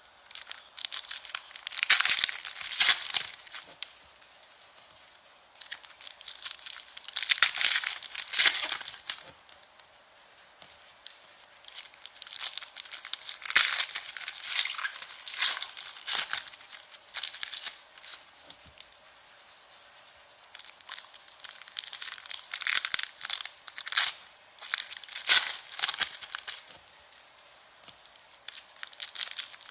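Foil wrappers of Donruss Optic basketball card packs being torn open and crinkled, in bouts of a few seconds about every five to six seconds.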